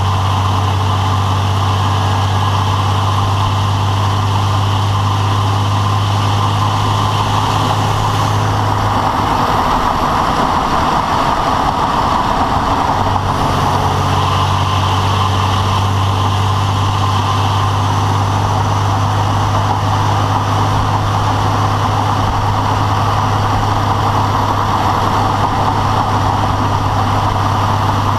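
A rebuilt engine running with a rapid rattling, a noise that started since the rebuild. A steady low hum drops away for a few seconds about nine seconds in, then returns.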